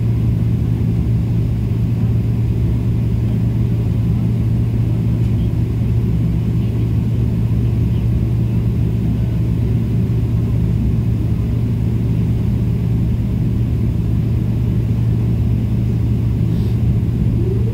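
Jet airliner cabin noise during taxi, heard from a window seat over the wing: a steady low hum and rumble. Just at the end a tone glides up and holds.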